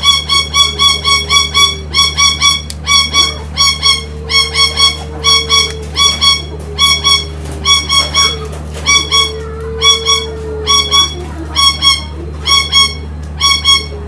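Loud, high, rapidly pulsed bird calls in repeating bursts of four to six quick notes. Under them, ornamental collared doves coo a few low, drawn-out notes, about four and about nine seconds in, over a steady low hum.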